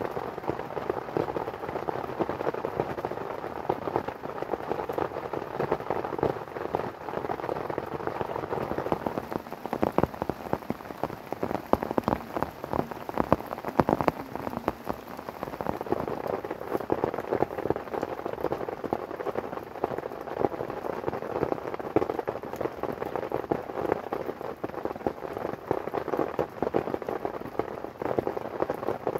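Steady rain falling, a dense patter of drops, with some sharper drop hits around the middle.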